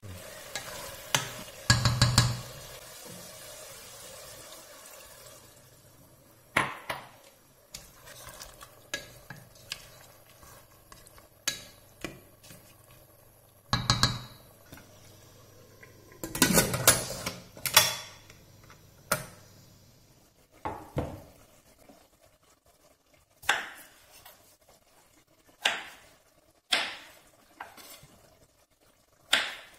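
A wooden spoon scraping and knocking against the inside of a stainless steel pressure cooker while stirring a chicken, pepper and mushroom stew, with a faint sizzle in the first few seconds. In the last third, a knife cuts peeled potatoes on a wooden cutting board: single sharp knocks about every one to two seconds.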